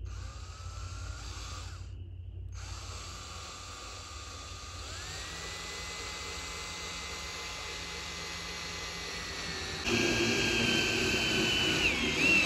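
Power drill driving a screw through a clear corrugated plastic roof panel into the wood beneath. The motor whine stops briefly about two seconds in, then runs steadily, rises in pitch about five seconds in, and gets louder about ten seconds in. The roofing does not crack.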